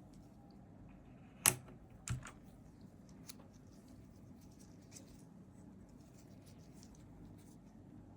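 Keycaps being pulled off a Razer V4 X mechanical keyboard: two sharp clicks about a second and a half and two seconds in, then a few faint ticks.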